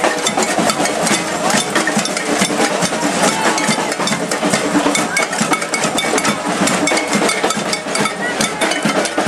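Loud street-march noise: a steady hubbub from a moving crowd, with many quick, irregular sharp knocks and claps.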